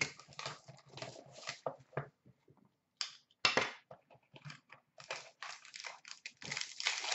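Cardboard and paper trading-card packaging being torn open and crumpled by hand: a run of short crackles and rustles, with a brief pause about two seconds in.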